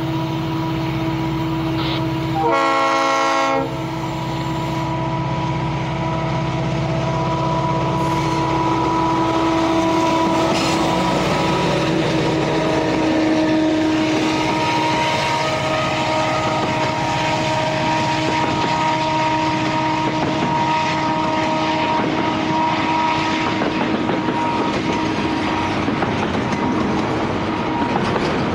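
Diesel freight locomotives pulling hard as they pass close by, with a short horn blast about three seconds in and a steady engine whine. The double-stack container cars then roll past with wheel clatter.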